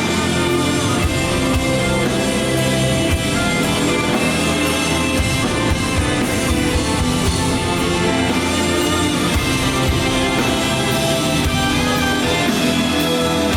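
Rock band playing an instrumental passage of the song, with guitars and a drum kit keeping a steady beat.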